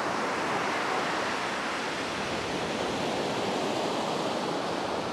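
Steady rushing noise of sea surf breaking, even and unbroken.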